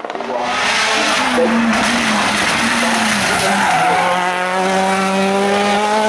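Hillclimb race car engine running hard at high revs with tyres squealing. The engine note wavers up and down, then holds steady for the last couple of seconds.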